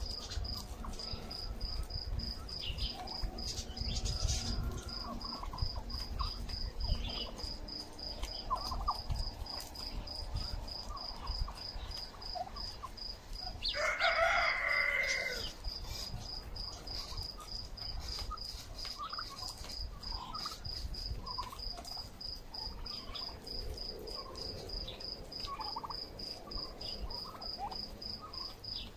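Domestic turkeys calling in short scattered notes, with one loud gobble about halfway through. A cricket chirps in a fast, even rhythm behind them.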